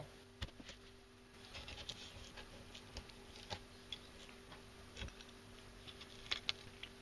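Knife paring the rib bones and pin bones out of a horse mackerel fillet: faint cutting and scraping with scattered light clicks.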